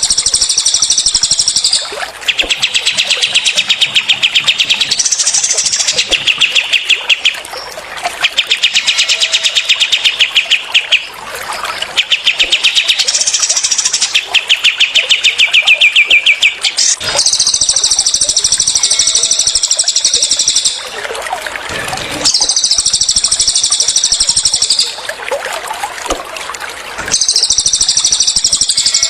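Cililin and kapas tembak birdsong: a continuous run of rapid, dense trilled phrases, alternating between very high, hissy trills and lower trills made of fast repeated notes, with brief gaps between phrases.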